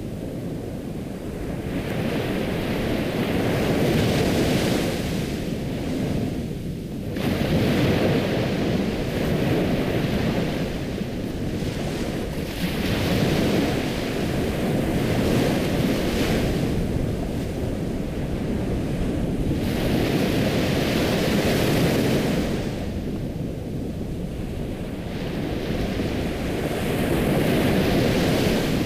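Ocean waves breaking and washing on a shore, swelling and receding every few seconds.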